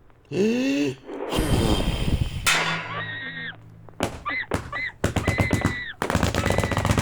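Cartoon sound effects from an early sound film: a short wavering cry, then clattering crashes. About four seconds in comes a fast rattling run of sharp cracks like gunfire, with a high whistle-like tone held over it.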